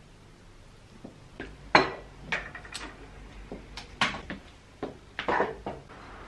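Irregular clatter of hard objects being handled: about a dozen knocks and clinks, the loudest about two seconds in.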